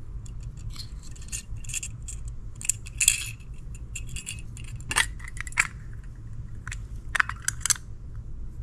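Two halves of a hard plastic AirPods case shell being handled and fitted together: scattered light clicks and taps, with sharper clacks about three and five seconds in and a quick cluster of clicks near the end.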